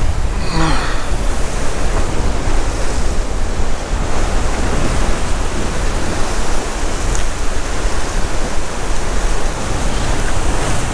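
Ocean swell surging and breaking over rocks into white water, a loud steady wash of noise.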